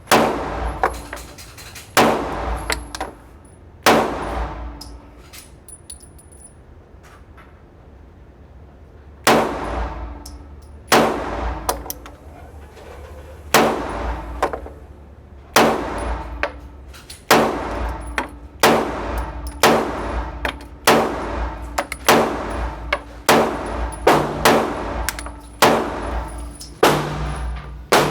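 Handgun-range gunshots fired singly at a target, each a sharp crack with a ringing tail: three shots in the first four seconds, a pause of about five seconds, then a steady string of shots about one a second.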